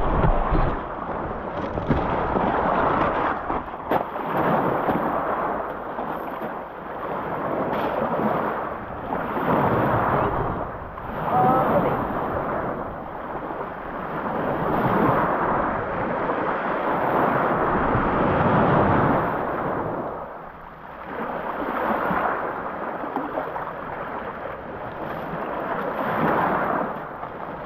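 Small wind-driven waves washing onto a pebble shore, each surge swelling and falling back every few seconds.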